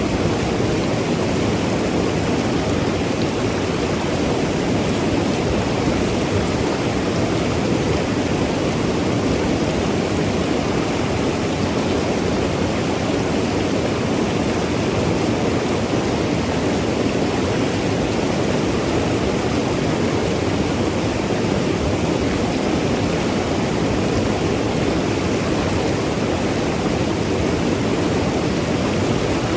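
Mountain river flowing and tumbling over rocks: a steady, full rush of water.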